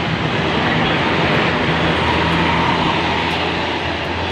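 Bus engine running steadily, a low hum under an even rushing noise.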